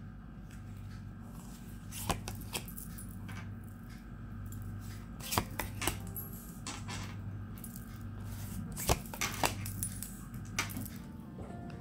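Tarot cards being drawn from the deck and laid down one at a time on a hard table top: a series of about eight light, sharp clicks and slaps, irregularly spaced.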